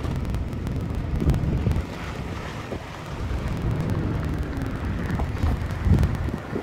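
Snow avalanche rumbling low while its powder blast buffets the microphone. The rumble surges about a second in and again near the end.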